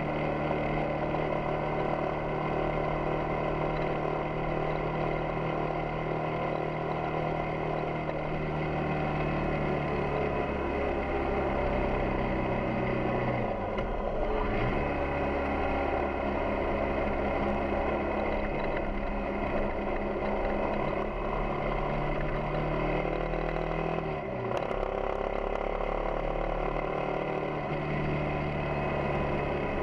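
Yamaha XTZ 250 Ténéré's single-cylinder four-stroke engine running steadily under way. Its pitch dips sharply twice, about 13 and 24 seconds in, then picks up again.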